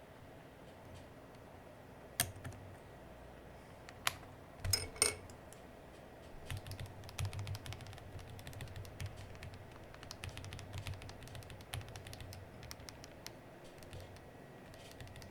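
Aula F99 Pro mechanical keyboard keycaps and switches clicking as they are handled: a few sharp separate clicks, then from about six seconds in a long run of lighter, rapid clicks.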